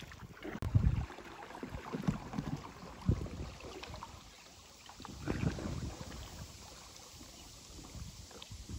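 Wind rumbling on the microphone in uneven low gusts over faint water sounds around a kayak moving along a river bank.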